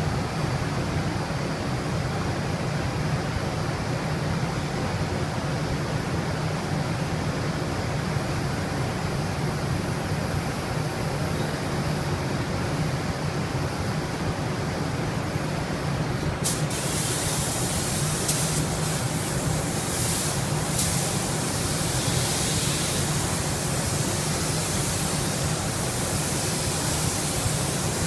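Paint spray gun hissing as it lays on the colour coat. The hiss starts suddenly a little past halfway and varies in strength, over a steady low hum.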